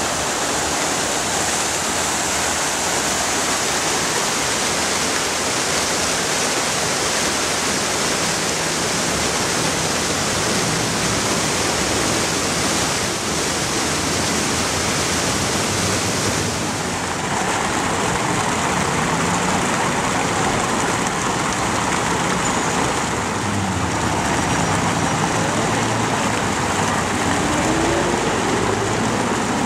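Fountain water splashing and falling in a steady rush. About 17 seconds in, the sound changes and traffic noise from passing vehicles mixes in with the water.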